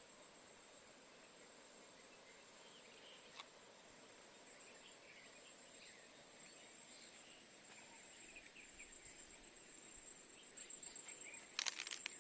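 Faint outdoor ambience: scattered small bird chirps over a steady high whine. There is one sharp click about three seconds in, and a few small handling clicks and rustles near the end.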